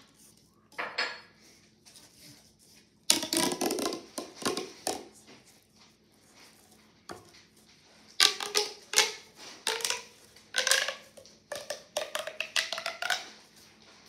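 Green jumbo plastic pop tube being stretched and bent, its ribbed sections snapping open and shut in several bursts of rapid pops and clicks.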